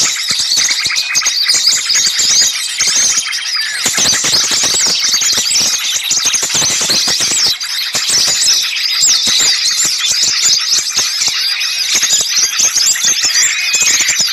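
A dense, noisy chorus of many small songbirds giving rapid high-pitched chirps and scolding calls, all overlapping without a break: a bird-lure recording of agitated small birds.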